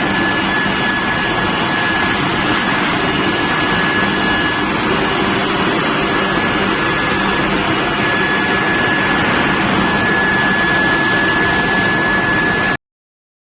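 Steady, loud industrial din of a steel billet induction heating furnace running, with a steady high-pitched whine over a broad machine noise and lower hum. It cuts off suddenly near the end.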